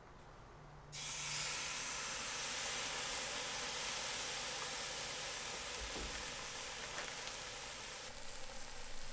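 Mustard-marinated flank steak sizzling on the grate of a charcoal grill, directly over hot coals. The sizzle starts suddenly about a second in as the meat goes on, then holds steady, turning a little more uneven and crackly near the end.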